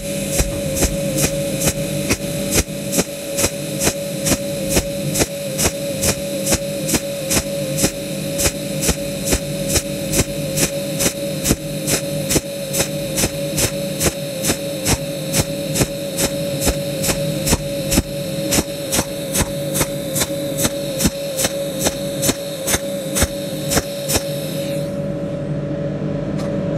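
TIG welding arc on steel tube, a steady hum-like buzz with a sharp pulse about twice a second, laying a rippled bead. The arc cuts off a couple of seconds before the end.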